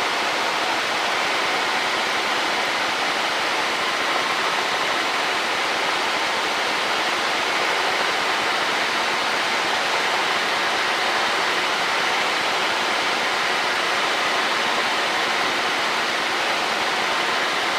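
Steady, even hiss on the cockpit radio and intercom audio feed, with no engine note or other sound standing out.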